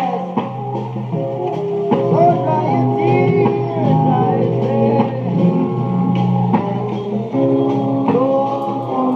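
A song with guitar and singing played from a vinyl record, thin-sounding with no deep bass.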